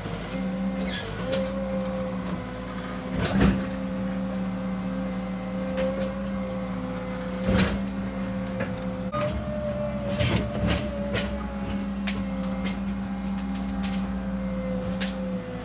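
Cat 306 mini excavator's diesel engine running steadily under a hydraulic whine, with a few loud sharp knocks and cracks as the machine works.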